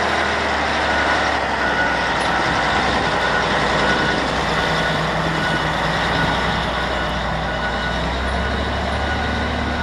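1985 CAT 980C wheel loader's diesel engine running steadily, with its back-up alarm beeping in a regular rhythm that stops about four seconds in.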